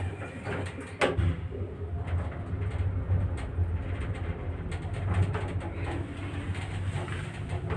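Old elevator car running with a steady low hum, with a sharp clunk about a second in.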